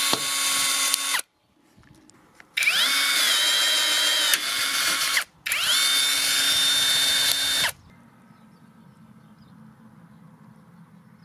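ONEVAN 21V brushless cordless rivet gun running its motor to pull and set rivets: a steady electric whine that rises in pitch as it spins up, in three runs of one to two and a half seconds each. The third run stops about two-thirds of the way in, leaving only faint background noise.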